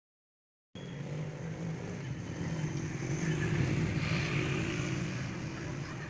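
A motor engine running steadily. It cuts in suddenly just under a second in, then swells around the middle and eases off slightly.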